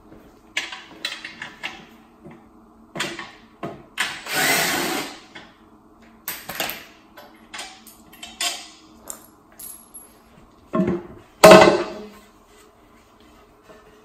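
Cordless drill/driver whirring in short bursts as it spins out the engine's oil-pan bolts. Near the end come two loud clunks as the pan is pulled off the block and set down.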